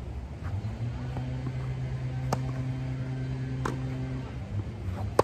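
Tennis ball being hit in a rally on an outdoor court: sharp pops of racket strings striking the ball and of the ball bouncing, roughly every second and a half, the loudest at the very end. A steady low hum, like a running engine, sounds through the middle and fades out about a second before the end.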